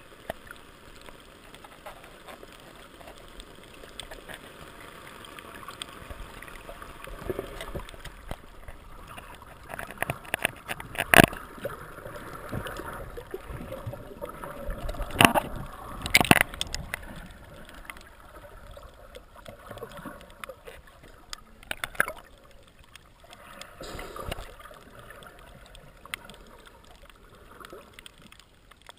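Muffled underwater noise picked up by a camera in a waterproof housing while snorkeling: a steady wash of water with gurgling. A few sharp knocks come through, the loudest about eleven seconds in, then two close together around fifteen to sixteen seconds in and a smaller one a little later.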